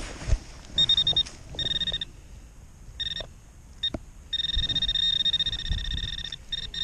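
Metal detector beeping with a steady high-pitched tone, in short on-off bursts and then held for about two seconds, as it is passed over a buried metal target in the dug soil. A sharp knock just after the start.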